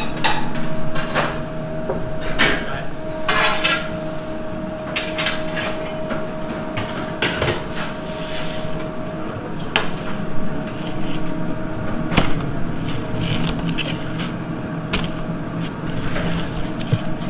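Restaurant kitchen clatter: scattered knocks and clinks of pans and utensils over a steady hum. Near the end a blade crunches through a baked pizza crust.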